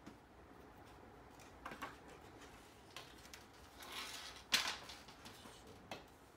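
Bamboo pieces being handled: a few hollow wooden knocks and clacks as split bamboo is put aside and a fresh green bamboo tube is picked up, with a short scrape just before the loudest knock about four and a half seconds in.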